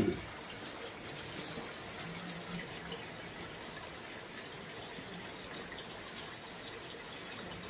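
Steady running water, a continuous trickle or gush like spring water flowing from a pipe. A single sharp knock sounds right at the start.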